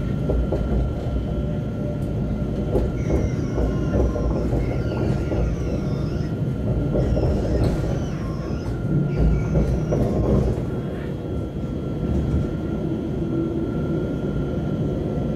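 Alstom Citadis tram running, heard from on board: a steady low rumble of wheels on rail with a thin constant whine, and high wheel squeals sliding in pitch a few seconds in and again around ten seconds in.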